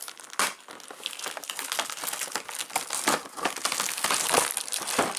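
Plastic packaging crinkling and crackling in irregular bursts as a small bagged part is pulled out of a cardboard advent-calendar compartment, getting louder toward the end.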